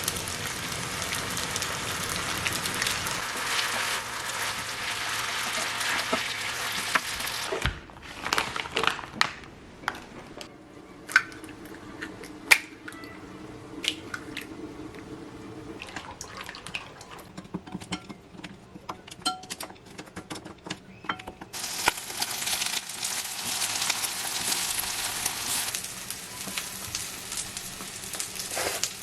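Food sizzling as it fries in a hot pan, cutting off about eight seconds in; then a stretch of scattered light clicks and knocks, and the sizzling returns for several seconds near the end.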